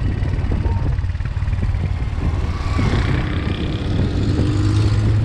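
Suzuki GS150 SE motorcycle's single-cylinder four-stroke engine running while the bike rolls down a steep road, with wind rumble on the microphone. About three seconds in, the noise of a small car passing close by swells and then fades.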